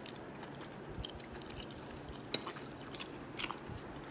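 Chewing of a mouthful of soft, cheesy potato bake, with a few small sharp clicks.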